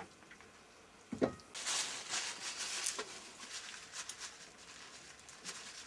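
Gloved hands handling a BSA three-speed motorcycle gearbox and its removed outer cover: a dull knock about a second in, then rustling with light metallic clicks.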